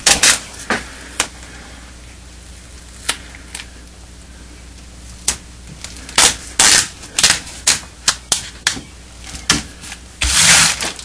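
Duct tape being laid along the folded edge of a plastic tarp: scattered sharp crackles and clicks of the tape and crinkling tarp, growing thicker past the middle. About ten seconds in, a hand rubs the tape down in one loud, brief rub.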